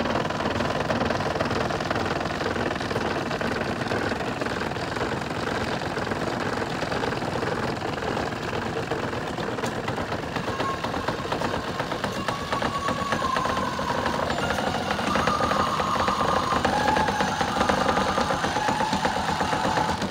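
A small motor running with a steady fast mechanical rattle. About ten seconds in, a wavering high tone joins it.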